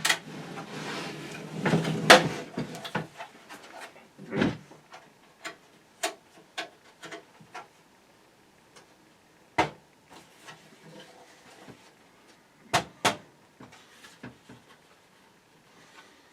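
Hands working on a desktop PC case's stuck plastic drive-bay cover. Scraping and rubbing for the first few seconds, then scattered sharp plastic and metal clicks and knocks, loudest about 2, 4.5, 9.5 and 13 seconds in.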